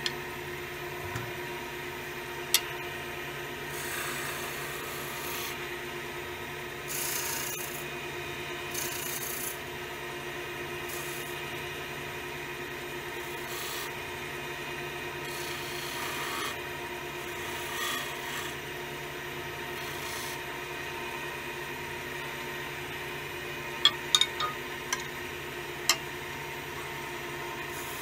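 Wood lathe running with a steady hum while a hand tool cuts the spinning willow vase, each pass a short hiss of wood shaving every few seconds. A few sharp clicks come near the end.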